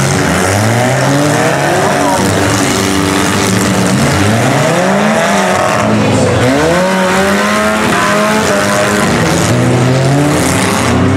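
Several compact demolition derby cars' engines revving up and down at once, their pitches rising and falling over each other continuously as the cars drive and ram about.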